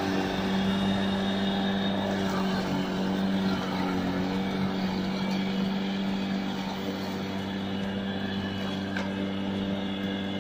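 Lasta corded electric lawn mower running steadily while cutting grass: a constant motor hum with the whirr of the spinning blade.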